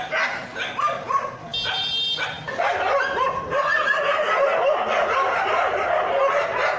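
Several street dogs barking and yelping over one another in a standoff. A high, sharp yelp comes about two seconds in, and from about halfway the calls overlap almost without a break.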